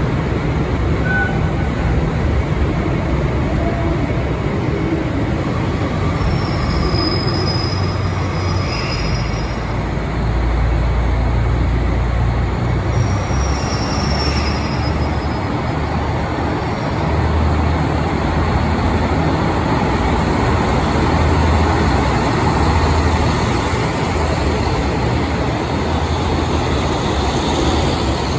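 KiHa 183-series diesel express train's engines running, then throttling up as the train pulls out and its cars roll past. The deep engine rumble swells about ten seconds in and again a few seconds later as it gathers speed.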